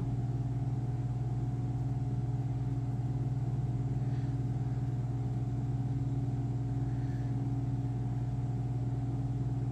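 Steady low hum of a running machine, even in level and pitch.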